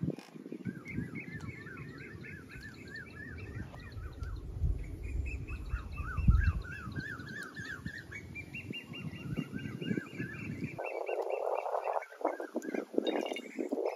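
Birds calling in rapid, repeated series of chirps over a low rumble. About eleven seconds in, the low rumble stops and mustard oil gurgles as it is poured from a glass bottle into a steel kadhai.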